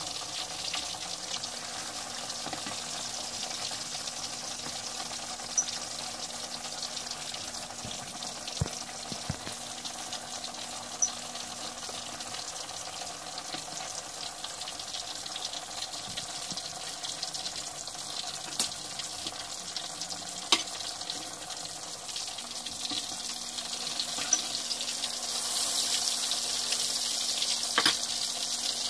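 Chapli kabab frying in hot oil in a cast-iron skillet: steady sizzling and bubbling, with a few sharp ticks. The sizzle grows louder near the end.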